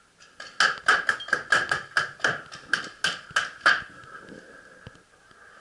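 Paintball marker firing a rapid string of about fifteen shots over some three seconds, then stopping.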